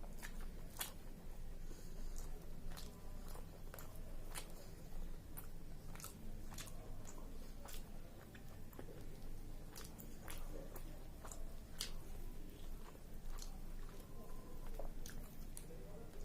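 Close-up eating of chicken biryani: a person chewing big mouthfuls, with many irregular sharp mouth clicks and crunches.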